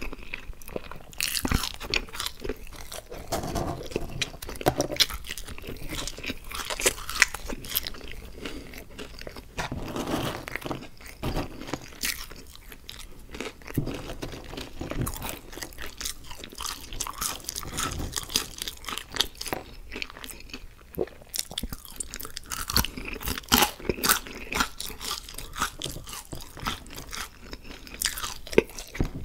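Close-miked ASMR chewing of French fries: many irregular, sharp wet mouth clicks and smacks as the fries are bitten and chewed.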